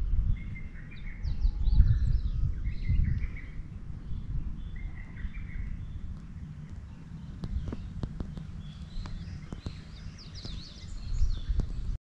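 Wild birds chirping and calling on and off, over wind buffeting the microphone in low gusts.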